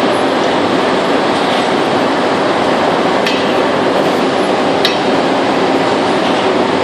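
Steady loud mechanical noise from an ingot-casting line, its chain conveyor of metal moulds running, with two sharp metallic clinks of a steel tool striking the moulds about three and five seconds in.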